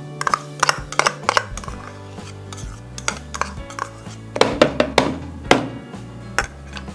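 Metal spoon scraping and knocking margarine out of a small bowl into a plastic mixing bowl, a quick run of clicks and taps in two flurries, over steady background music.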